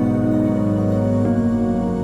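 Background music: slow, sustained new-age synth chords, changing chord about a second in.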